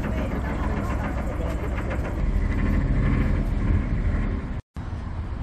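Narrowboat engine running with a steady low rumble. A brief total dropout about four and a half seconds in.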